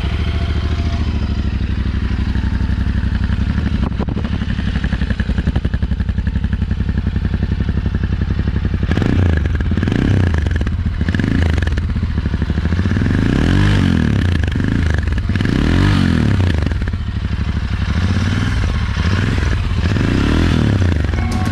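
2019 Royal Enfield Continental GT 650's air-oil-cooled 648 cc parallel twin (270° crank) heard close at its stock chrome silencer: idling steadily, then from about halfway through blipped repeatedly, the revs rising and dropping back to idle several times.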